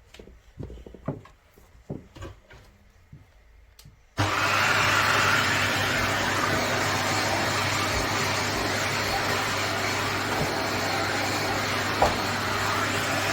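Clicks and knocks of the Shark Stratos XL upright vacuum cleaner being handled. About four seconds in, its motor switches on abruptly and runs with a steady loud whoosh and a low hum.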